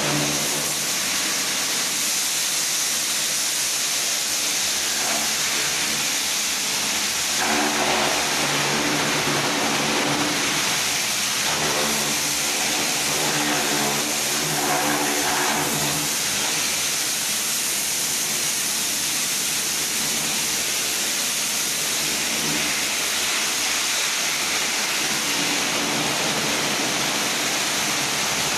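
Kärcher pressure washer running steadily, its pump motor humming under the hiss of the water jet spraying soot off the walls.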